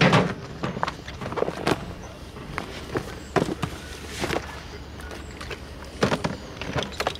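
Stiff tent-fabric cover rustling and crackling as it is lifted and handled, with scattered light knocks and clicks of gear, such as a coiled garden hose, being moved about.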